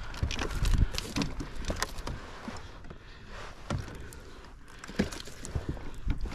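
A striped bass being netted and brought aboard a kayak: irregular knocks, splashes and rustling of the landing net and gear against the hull.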